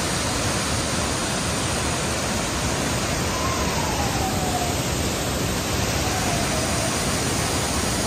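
Steady, loud rush of a waterfall pouring down a cliff into a pool.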